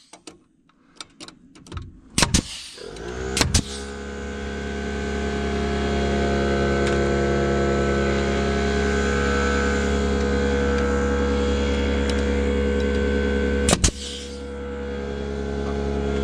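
Pneumatic framing nailer firing two nails about a second apart. As they fire, an air compressor's motor starts up, rising in pitch and then running at a steady hum. One more nail shot comes near the end.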